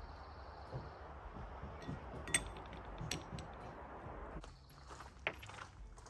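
Light metallic clinks and taps of hand tools and parts being handled while a loose part is refitted on a tile saw. One sharp click about two seconds in, another near the end, and a steady hiss underneath that drops away after about four seconds.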